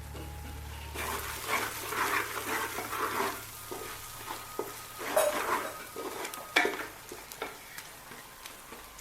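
Spoon stirring and scraping a thick onion masala paste frying in oil in a wide pot, with a light sizzle under the strokes. There is a sharp knock of the spoon against the pot about six and a half seconds in.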